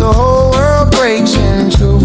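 Reggae music: a heavy bassline and a steady beat under a gliding lead melody.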